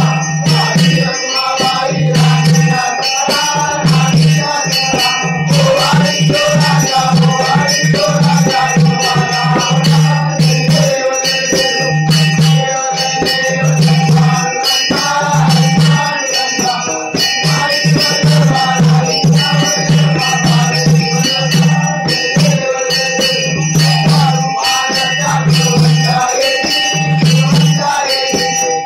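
Devotional arati hymn sung by a group, over fast jingling percussion with steady ringing tones.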